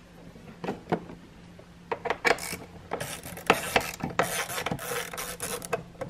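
Torx screwdriver backing out the T30 screws of a Tesla Model S door handle: irregular clicking and scraping of the tool, coming thicker after about two seconds, with heavy breathing close to the microphone.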